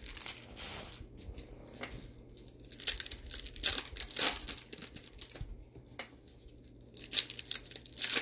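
Bowman baseball card pack wrappers crinkling and cards being handled, in short irregular rustles and crackles.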